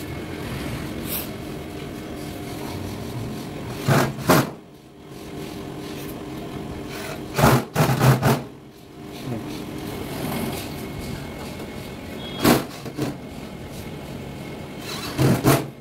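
Cordless drill driver running in short bursts, driving screws into the sheet-metal casing of an air-conditioner outdoor unit. There are four spells of one to three quick whirs each, a few seconds apart, over a steady low background hum.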